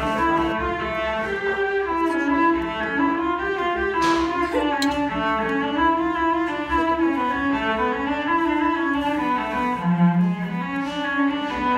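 Cello music: a bowed melody of held notes that change pitch every half second or so, with a lower note held near the end.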